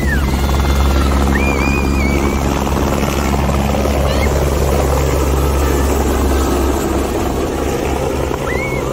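Single-engine light helicopter taking off, its rotor and turbine running steadily as it lifts off the ground and climbs away, easing slightly near the end. A few short high whistle-like calls sound over it.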